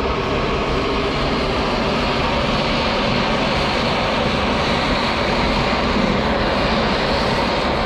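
Handheld gas torch flame burning with a steady rushing noise while a seam on a brass truck-radiator tank is soldered with filler rod.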